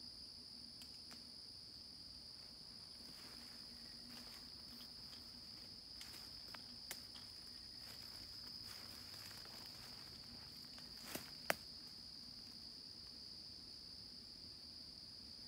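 Steady high-pitched drone of insects in summer woods, with soft rustling footsteps in leaf litter. Two sharp clicks come close together past the middle.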